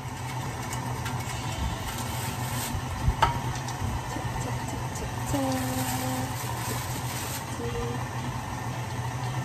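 KitchenAid stand mixer running with its meat grinder attachment, a steady motor hum as strips of raw meat are fed in and ground. A single sharp knock about three seconds in.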